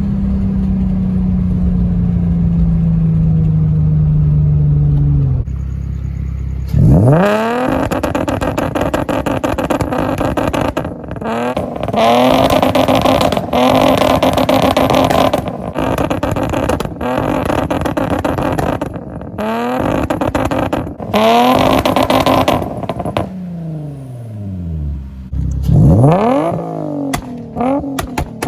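Infiniti G35's 3.5-litre VQ V6 under hard acceleration: the engine note first holds and slowly sinks, then climbs sharply several times in a row, each climb broken by a brief gap at a gear change. Near the end the revs fall away and climb again.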